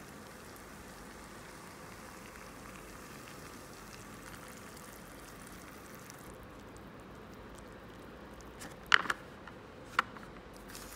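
Hot water pouring from a kettle into a paper cup of instant noodles, a steady splashing trickle that stops about six seconds in. Near the end come two sharp crinkling clicks as the cup's paper lid is pressed shut by hand.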